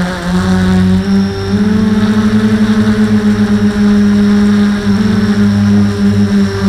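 Quadcopter electric motors and propellers whining, heard close up from the onboard camera. The hum's pitch steps up about a second and a half in and settles lower again near the end as the throttle changes, with a fast fluttering beat between the rotors in the middle.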